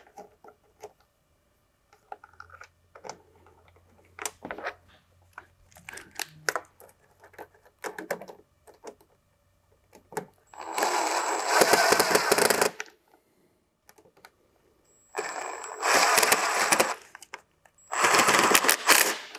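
Cordless power driver running three times in runs of a second and a half to two seconds each, driving screws down, with a thin high whine in each run. Before it come scattered small clicks and knocks of plastic and metal parts being handled and fitted.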